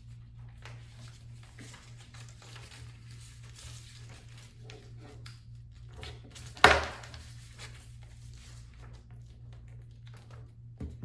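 Faint rustling of paper strips being folded and creased by hand, with one sharp knock about two-thirds of the way in.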